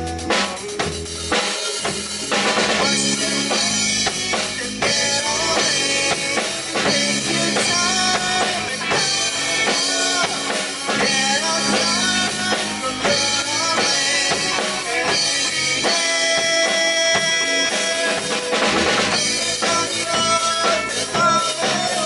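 A rock band playing an instrumental passage: a drum kit keeping a steady beat with kick and snare under guitar, bass and keyboard.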